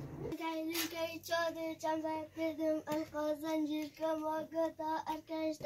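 A child singing a quick, repetitive chant: short syllables in rapid succession, held on nearly one note, starting about a third of a second in.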